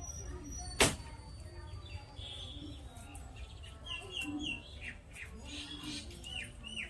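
Small birds chirping, short high notes repeated in quick runs, with a single sharp click about a second in, the loudest sound, over a steady low hum.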